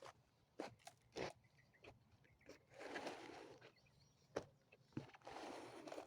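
Faint rustling and scraping of hands working soil and plastic seedling pots while planting squash seedlings, with scattered sharp clicks and two longer rustles, one about three seconds in and one near the end.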